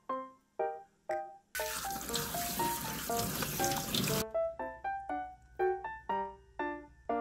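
Kitchen sink tap spraying water onto salted seaweed in a perforated stainless-steel colander, rinsing the salt out; the water starts about a second and a half in and stops after about two and a half seconds. Light piano background music plays throughout.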